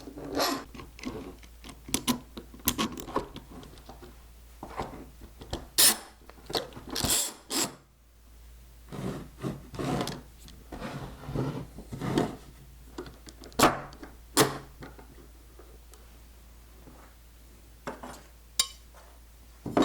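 Handling noise as a 2x4 board is set up and clamped in a vise: irregular knocks, clicks and short scrapes of wood against wood and metal, quieter near the end.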